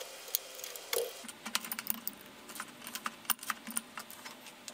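Light, irregular clicks and ticks of a small crescent wrench and plastic hose fittings as the brine and drain hoses are loosened from a Fleck water softener's control valve.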